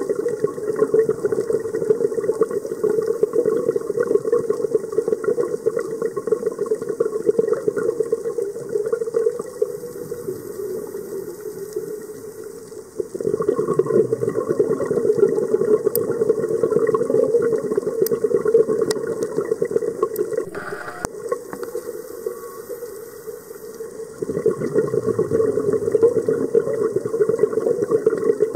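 Scuba diver's exhaled air bubbling from the regulator, heard underwater. The bubbling fades away slowly and starts up again abruptly, once about halfway through and once near the end, with each breath.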